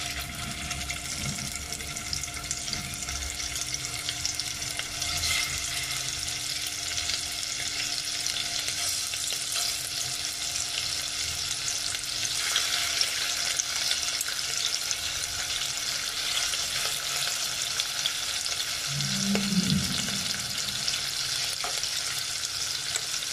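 Marinated chicken pieces sizzling as they fry in hot oil in a wok. The sizzle grows louder about halfway through as more pieces go in. A short low sound comes near the end.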